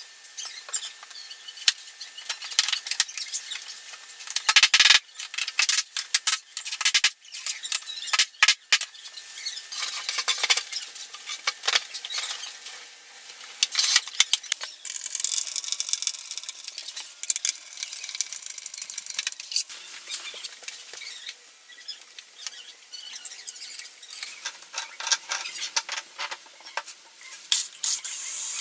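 Irregular clicks, knocks and scraping of vinyl floor planks being handled and fitted, with a longer stretch of scraping about halfway through.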